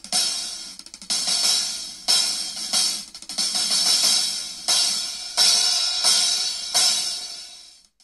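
Cymbals crashing about eight times, roughly a second apart, each crash left to ring and decay; the last one fades away near the end.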